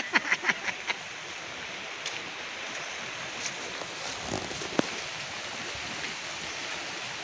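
Steady rush of flowing water, with a few short knocks in the first second and a single sharp click a little under five seconds in.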